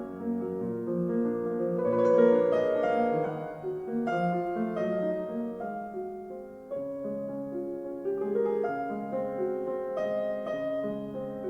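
Piano music played back through Yamaha NS-1000MM speakers: a flowing run of sustained notes.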